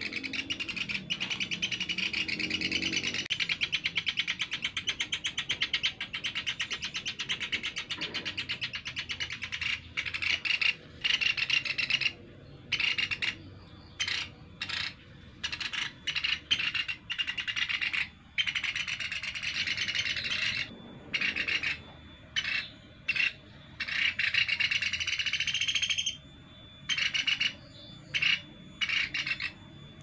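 Young pelatuk beras (caladi, a small barred woodpecker) giving rapid, buzzy chattering calls. The chatter runs almost without a break for about the first ten seconds, then comes in short bursts separated by brief silences.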